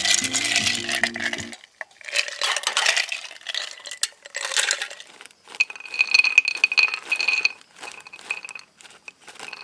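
Ice cubes clinking and rattling against a glass in repeated short bursts as iced coffee is made. Background music ends about a second and a half in, and a steady high tone sounds for about two seconds in the second half.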